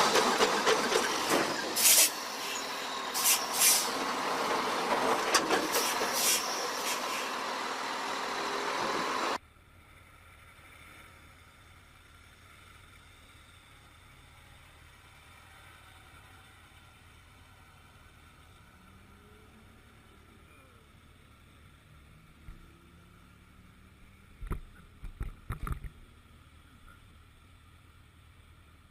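Loud heavy-vehicle noise with several short, sharp hissing bursts, cutting off abruptly about nine seconds in; after that only faint background noise, with a brief cluster of knocks near the end.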